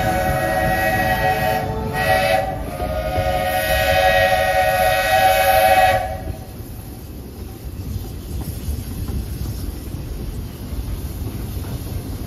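Steam locomotive's whistle blowing a chord, already sounding at the start. It breaks off briefly about two seconds in, sounds again, and stops about six seconds in. After that the train's low running rumble carries on.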